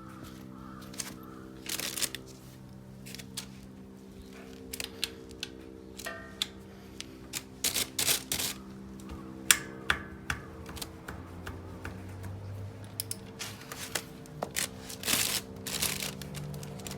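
Irregular clicks and clinks of tools and parts being handled during a motorcycle oil change, over steady background music.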